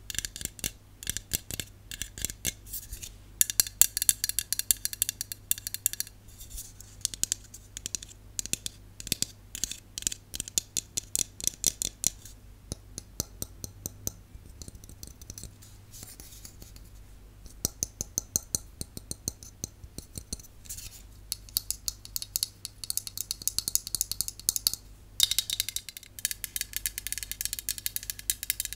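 Fingernails tapping rapidly on an aluminium aerosol can, in quick runs of sharp clicks broken by short pauses. Near the end the taps come from long fake nails.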